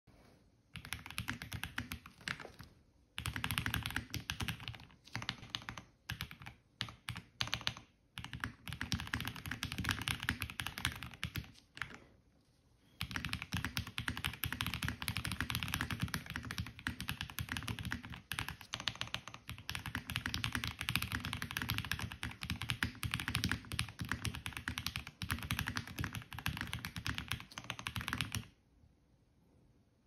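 Typing on an Ikki Aurora R2 custom mechanical keyboard with lubed JWICK Black linear switches, a polycarbonate plate and doubleshot ABS keycaps: dense runs of keystrokes with short breaks about 3 and 12 seconds in, stopping a second or two before the end.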